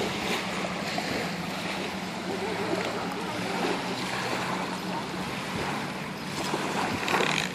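Small waves lapping and breaking on a sandy shore, a steady wash of water with a low steady hum underneath. The wash swells briefly louder near the end.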